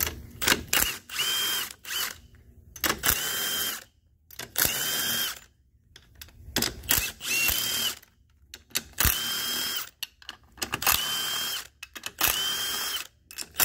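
A cordless power tool runs in about nine short bursts of roughly a second each, spinning out the bolts that hold the aluminium case halves of a transmission together. Each burst carries a steady motor whine, and there are short clicks between the bursts.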